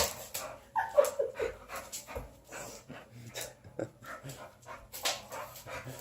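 Boxer dog panting hard with a short falling whine about a second in, among scattered sharp clicks and pops as it scrabbles after the laser dot.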